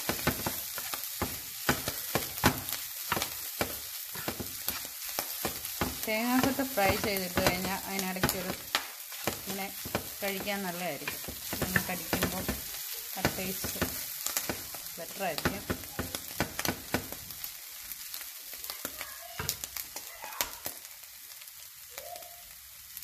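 Clam meat sizzling in a nonstick frying pan while a wooden spatula stirs it, with steady scraping and tapping on the pan. The meat is being fried down until crisp and dark. A wavering pitched sound comes in about six seconds in and again near sixteen seconds.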